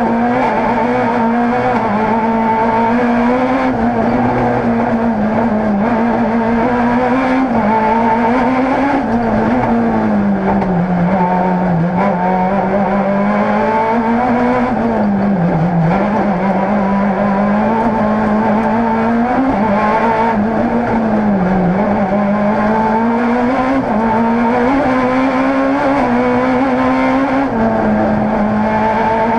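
Rally car engine run hard, heard from inside the cockpit, its pitch climbing and falling as the driver works the throttle and shifts gears, with a few deeper dips about a third, half and two thirds of the way through.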